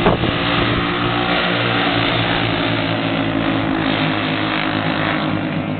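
Several small racing kart engines running hard together as a pack of champ karts laps the oval, their overlapping engine notes shifting slightly in pitch. A brief sharp click right at the start.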